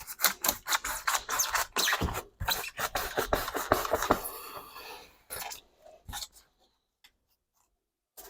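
Rapid scraping strokes of a hand tool working on the layout's plywood and foam, for about five seconds, then a few light clicks.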